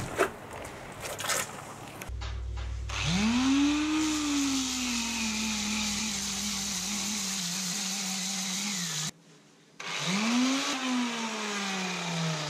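Electric right-angle disc sander grinding fiberglass, dishing out the keel around repair holes to a wide taper before new layup. Its motor spins up, then its pitch sinks and steadies as the disc bears on the hull. It cuts off a little past the middle, starts again about a second later and falls in pitch toward the end. A few clicks come before it first starts.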